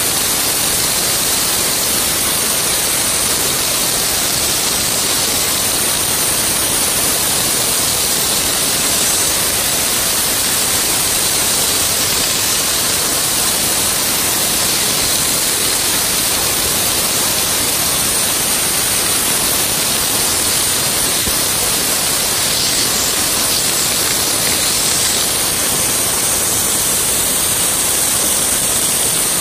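Wet ice blasting gun spraying onto a steam cleaner's plastic casing, stripping years of paint buildup: a loud, steady hiss.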